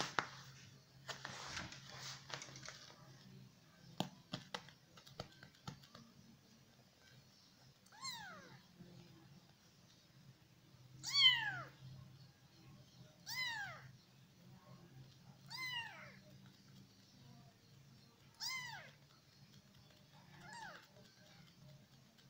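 A weeks-old kitten meowing six times, each call short and high and falling in pitch, two to three seconds apart; the second is the loudest. Before the first meow there are a few seconds of rustling and some sharp clicks.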